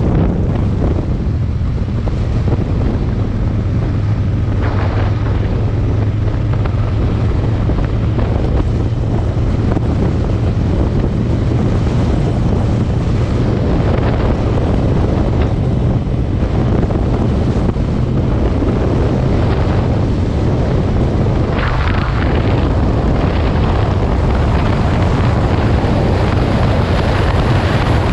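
Aprilia Tuono 1000's V-twin engine running steadily under way, with heavy wind buffeting on the microphone.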